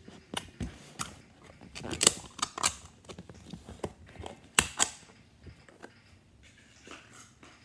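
Slime being poked and pressed in a clear plastic cup, giving scattered sharp clicks and pops, the loudest about two seconds in and a close pair a little before the five-second mark.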